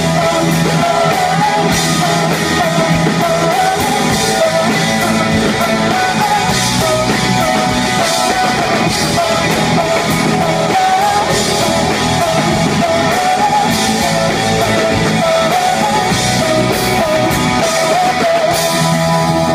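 Live rock band playing loudly: a woman sings the lead melody over electric guitars and drums.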